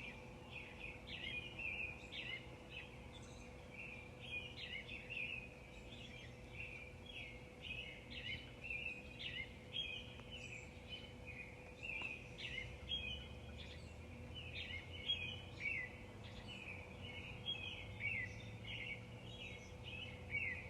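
Several songbirds chirping continuously in a dawn chorus, many short overlapping high chirps, over a faint low background rumble and a thin steady hum.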